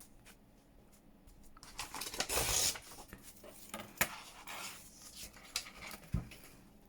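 Paper being handled at a craft table: a rustling swish, a sharp tap about four seconds in, and a low thump near the end.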